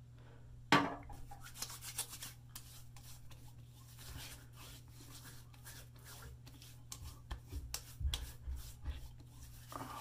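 Hands rubbing and patting an alcohol-free, witch-hazel-based aftershave splash onto freshly shaved skin of the face and neck: a run of soft rubs and light pats, with a sharp smack about a second in and a cluster of heavier pats near the end.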